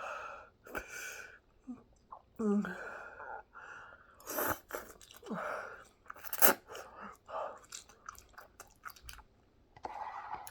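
A person chewing food close to the microphone: irregular wet mouth noises with a few sharp smacks.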